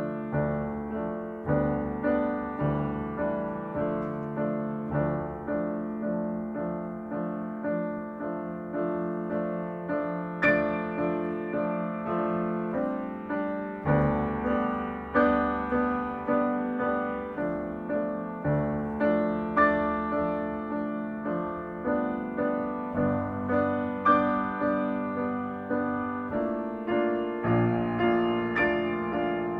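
Solo grand piano playing a calm piece in an even pulse of about two notes a second, each note struck and left to ring over a sustained low note.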